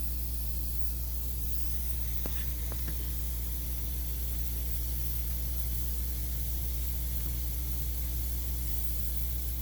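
Steady low electrical hum with a constant hiss, and two or three faint light clicks a little over two seconds in.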